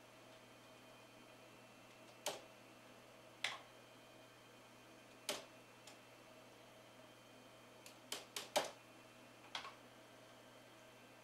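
Computer keyboard keys pressed one at a time, about ten sharp clicks at irregular spacing with a quick run of four about eight seconds in, over a faint steady hum.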